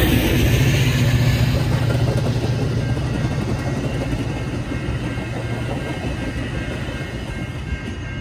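Metra commuter train's bilevel gallery coaches rolling past on the rails, a steady low rumble and hum that fades steadily as the train moves away.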